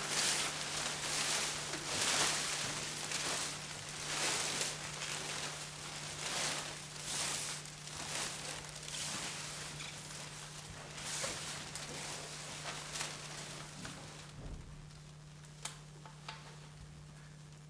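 Rustling swishes of crinkly sheet material handled by performers, about one a second, thinning out near the end into a few scattered clicks, over a steady low hum.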